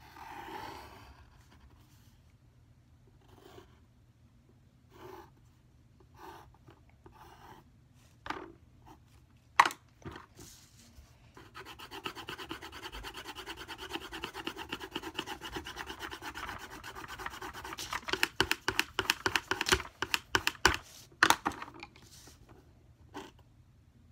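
Pencil drawing on paper: a few short separate strokes, a sharp knock a little before halfway, then fast back-and-forth shading strokes for about ten seconds, getting heavier toward their end.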